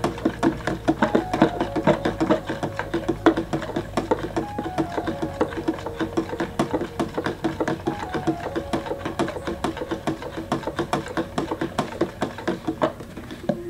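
A metal spoon stirred fast in a small plastic cup, ticking rapidly against the cup's wall as pH buffer powder is dissolved in water. The stirring stops about a second before the end.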